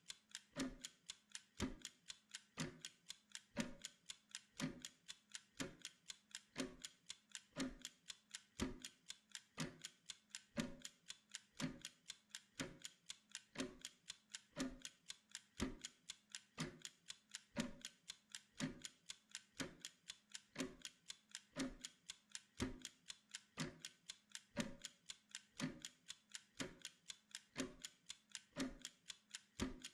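Clock ticking steadily, about two ticks a second, as a timer's tick-tock.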